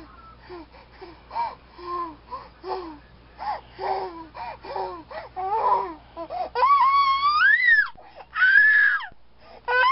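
Baby fussing and crying: a run of short whiny cries, then a long rising high-pitched wail about six and a half seconds in, followed by two more sharp cries near the end.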